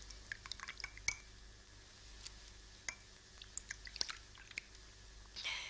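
Faint, scattered small clicks and taps of a glass bottle and drinking glasses handled on a table.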